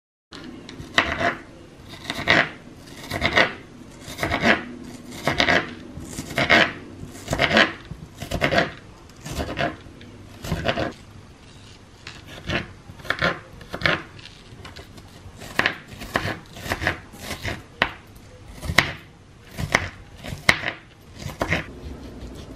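Kitchen knife chopping vegetables on a plastic cutting board: sharp strokes about one a second, coming quicker and less evenly in the second half.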